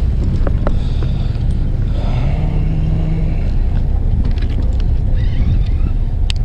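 Fishing boat's engine running steadily, a constant low hum-and-rumble, with one sharp click near the end.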